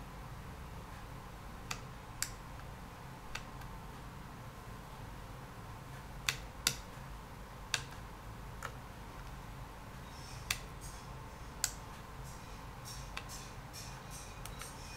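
Small 28BYJ-48 geared stepper motor running faintly through a reference run, with about ten sharp clicks scattered through and a faint fast ticking in the second half.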